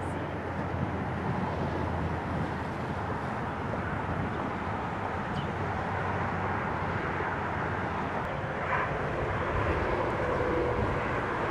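Steady outdoor rumble with no distinct events, growing slightly louder near the end: the general roar of the open air under the storm, such as distant road traffic and wind.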